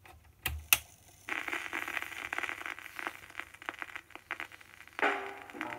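Vinyl 7-inch single on a Vestax Handy Trax portable turntable, heard through its small built-in speaker. Two sharp clicks, then steady crackle and surface noise from the lead-in groove; the song's music starts about five seconds in.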